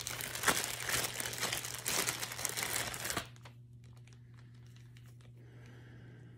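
Crinkling, rustling handling noise with many small clicks for about three seconds, then it stops, leaving a low steady hum.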